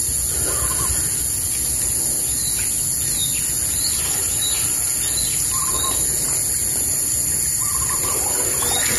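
Outdoor ambience with a bird calling in short chirps several times, over a steady high-pitched whine and a low rumble of background noise.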